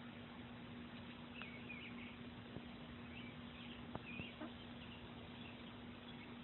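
Quiet outdoor ambience with a few short, faint, high bird chirps scattered through it, over a steady low hum and a few light clicks.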